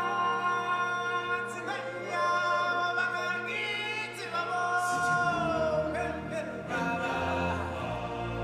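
Choir and solo voices singing a slow number with long held notes that glide between pitches, over a sustained low accompaniment that shifts about five seconds in.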